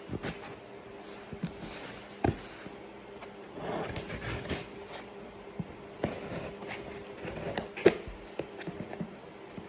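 Cardboard shipping box being opened by hand: scattered sharp clicks and knocks with rustling and scraping of the tape and flaps, the loudest knock near the end, over a faint steady hum.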